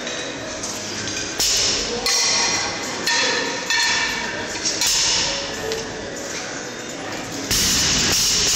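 Loaded barbell with iron plates coming down onto a rubber gym floor near the end, a loud thud and clank. Before that, scattered metal clinks and voices of a busy weight room.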